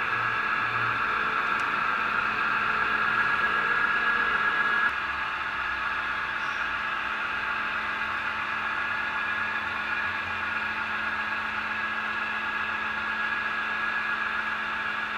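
HO scale model train, two GE diesel locomotives hauling heavy hopper cars up the helix grade, running with a steady whir that drops somewhat about five seconds in.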